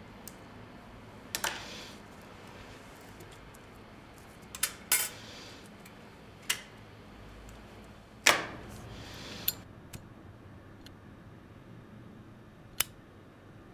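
Cigarette and lighter being handled: a scattering of sharp clicks and taps, the loudest about eight seconds in, trailing into a hiss of about a second that ends with another click.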